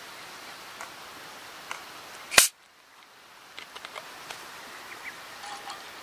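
Steady rush of a stream, broken about two seconds in by one short, very loud sharp crack. Small ticks and splashes follow near the end as liquid starts pouring into a metal camp mug.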